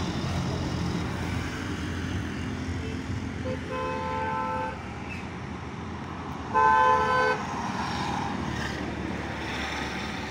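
Diesel engine of a road milling machine running steadily, with a vehicle horn sounding twice: a toot of about a second at three and a half seconds in, and a shorter, louder one near seven seconds.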